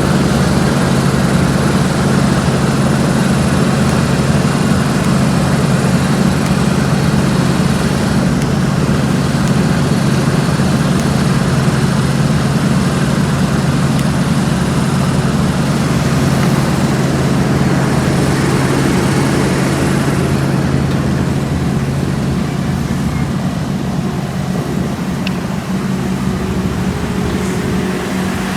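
Diesel engine of heavy asphalt-paving machinery running steadily at a constant speed, with a low, unchanging hum and a little less loud in the last few seconds.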